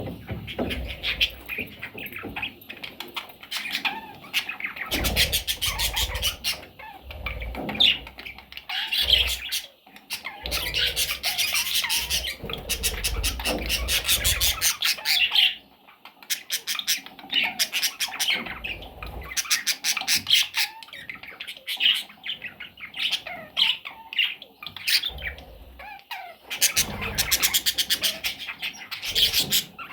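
Pet budgerigars chirping and chattering in a continuous warble, with low thumps now and then.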